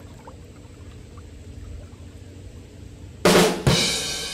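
A low, steady rumble, then about three seconds in two loud drum hits with a cymbal crash that rings on as music starts.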